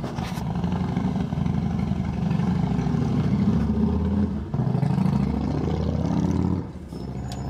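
A motor vehicle's engine running close by. Its pitch sinks and rises again about five to six seconds in, and it drops away sharply near the end.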